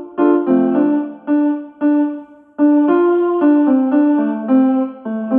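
A calm ringtone melody in a piano-like keyboard tone: single notes, each struck and fading, with a brief pause a little over two seconds in before the tune goes on.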